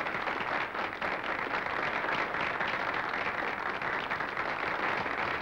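A large audience applauding, many hands clapping densely and steadily, on an old 1930s film soundtrack.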